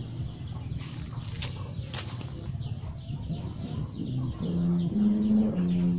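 Khmer khleng ek kite's bow hummer humming in the wind: a low buzzing drone with overtones sets in about four seconds in, its pitch stepping between two close notes. Before it, a rough low rumble.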